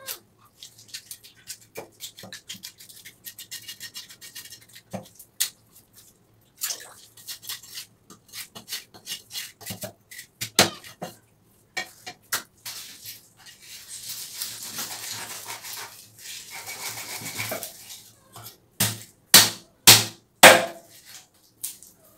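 A large knife working a milkfish on a wooden log chopping block: scattered taps and knocks, and a long rasping scrape across the middle. Four loud chops follow near the end as the fish is cut into pieces.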